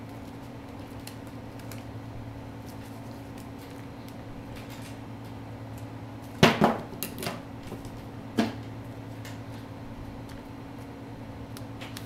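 Scissors cutting duct tape: a quick cluster of sharp snips about six and a half seconds in and one more snip about two seconds later, over a steady low hum.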